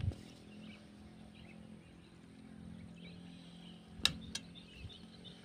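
Birds chirping in the background, with a faint steady low hum under them. Near the end come two sharp clicks, about a third of a second apart.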